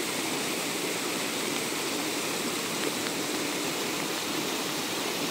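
Shallow mountain stream rushing over rocks and small cascades: a steady, unbroken rush of water.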